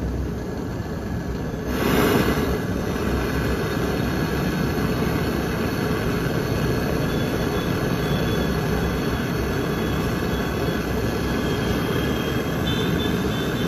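Gas torch flame hissing steadily while heating an aluminium freezer evaporator plate to weld a puncture with aluminium rod. It gets louder about two seconds in and then holds steady.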